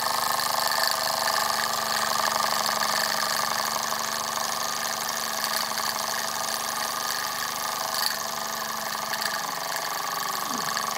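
Latimer L5 toy steam engine running steadily at speed, with fast, even exhaust beats over a hiss of steam. The steam leaks from its overflow plug, whose thread is worn out.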